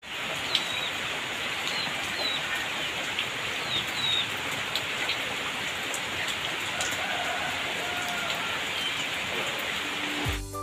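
Heavy rain falling steadily on garden foliage, with a few short bird chirps over it in the first few seconds.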